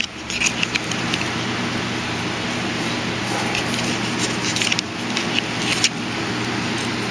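A steady mechanical hum, with a hiss over it. Scattered soft clicks and rustles come about a second in and again from about four to six seconds in, as a Pomeranian puppy mouths and paws a plush toy on a fleece blanket.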